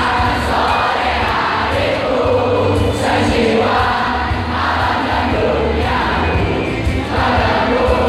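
Live band music played loud through a PA, with a large crowd singing along in chorus, recorded from within the audience.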